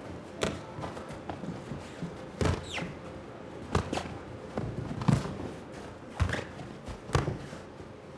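Boxing punches landing: about six irregular thuds of gloves hitting gloves and body, with shoes shuffling on the ring canvas and a short squeak.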